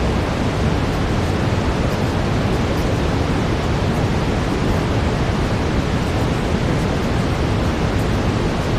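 Steady brown noise: an even, deep rushing hiss, heaviest in the bass, with no change in level or texture.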